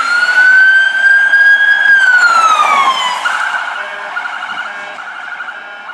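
Police SUV's electronic siren sounding: a wail that holds high, then falls about two seconds in, switching to a fast pulsing yelp that slowly fades.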